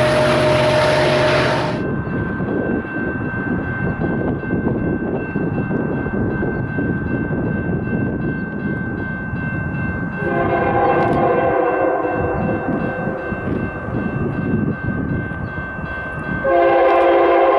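A Canadian Pacific SD70ACu diesel locomotive rumbling past close by, its noise stopping abruptly after about two seconds. Then the distant rumble of an approaching CP freight train, whose lead locomotive sounds a long chord horn about ten seconds in that grows louder near the end.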